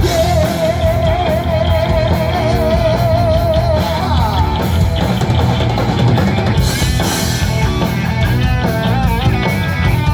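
Loud rock music with drum kit and electric guitar in an instrumental passage. A held lead note with wide vibrato wavers for the first few seconds, then gives way to quicker guitar lines.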